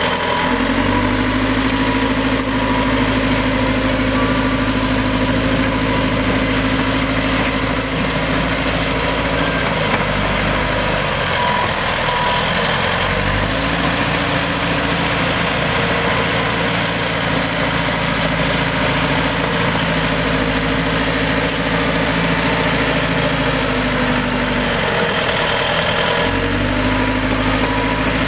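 1992 Caterpillar D5H crawler dozer's diesel engine running steadily as the machine pushes dirt with its blade. The engine note shifts about a second in, again around the middle and again near the end as the load and travel change.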